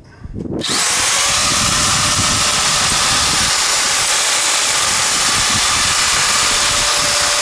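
Makita electric sheet-metal nibbler starting about half a second in and running steadily as its punch chops through thin metal door screening.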